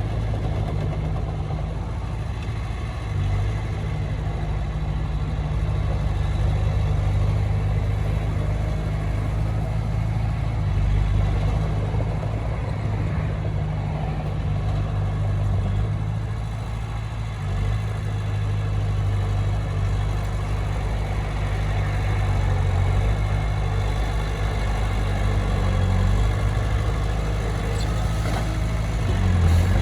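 Heavy diesel engine of earthmoving equipment running steadily, its low rumble rising and falling slightly in level.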